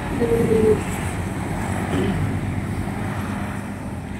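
Road traffic passing close by: motor vehicle engines running, with one engine note falling in pitch as it goes past about two seconds in.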